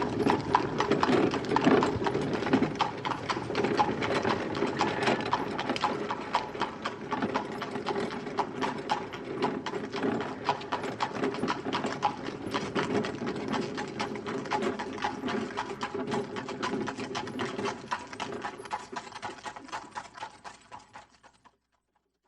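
Horse's hooves clip-clopping on a street as it pulls a wagon, with the rattle of the wagon in a dense run of clatter. The sound fades steadily, as if moving away, and stops shortly before the end.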